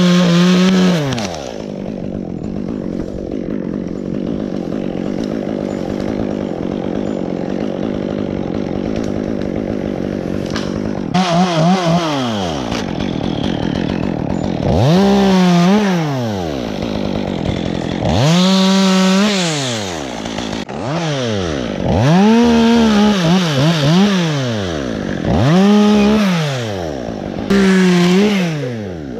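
Two-stroke top-handle chainsaw at full throttle, dropping to a ragged idle about a second in. From about ten seconds on it is revved to full speed and let back down to idle about six times as limbs are cut.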